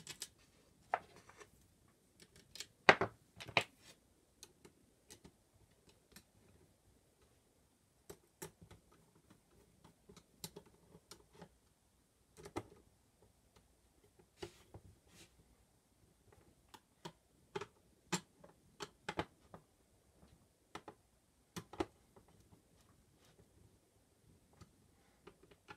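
Irregular small clicks and taps of a screwdriver, screws and handling on the sheet-metal chassis of a QuickDisk drive being taken apart, with two sharper knocks close together about three seconds in.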